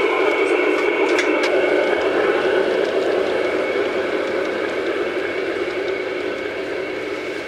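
Garden-scale model train, a Rhaetian Railway Crocodile electric locomotive hauling passenger coaches, running on outdoor track: a steady rolling rumble of wheels on rails with a thin motor whine and a few light clicks about a second in, slowly fading as the train moves away.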